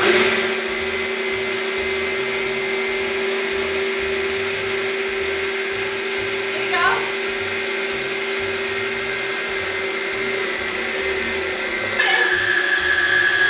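A Yonanas frozen-dessert maker's electric motor is switched on and runs with a steady hum and whine. About twelve seconds in, frozen fruit is pressed down the chute with the plunger: the sound gets louder and the whine changes pitch as the fruit is ground.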